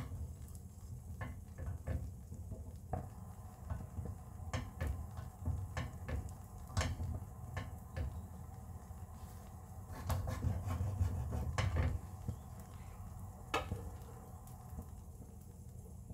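Kitchen handling sounds around a frying pan on a gas stove: scattered light clicks and knocks at irregular intervals, a denser run of them about two-thirds of the way through, over a low rumble.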